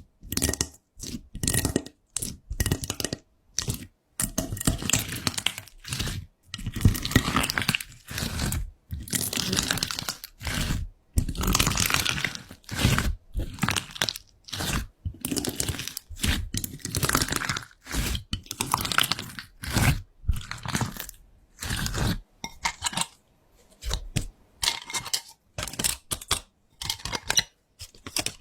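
Irregular crunching and crinkling noises in many short bursts, separated by brief silences.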